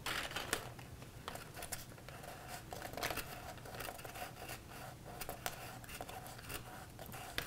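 Faint rustling and crinkling of paper, with scattered light ticks, as fingers press a glued corner tab into place inside a paper box.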